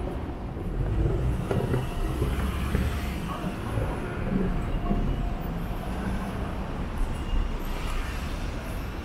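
Low, steady rumble of vehicles going by in a town street, with a few faint clicks and tones over it.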